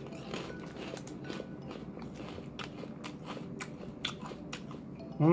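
A person chewing a crunchy sugar-glazed rice cracker (Yuki no Yado senbei), with many small irregular crunches, over faint background music.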